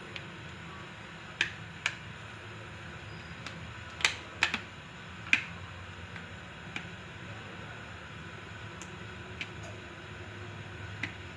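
Sharp, short plastic clicks and snaps, about eight of them at irregular intervals and loudest around the middle, as the back cover of a Nokia 3 phone is pried off its clips. A steady low hum runs underneath.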